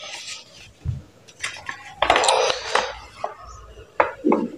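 Rustling and crinkling of a folded paper letter being handled and smoothed flat by hand, with a louder stretch of rustling about two seconds in and scattered light clicks.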